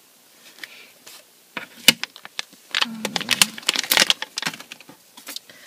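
Plastic blind-bag packets and paper crinkling as they are handled. After a brief quiet stretch, a run of sharp crackles begins about a second and a half in.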